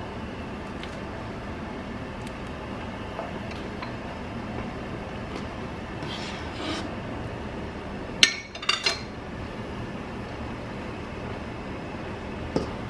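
Sharp metal clinks against a stainless-steel stockpot as noodles are stirred into the broth: a few about eight seconds in and one more near the end. A steady low background noise runs underneath.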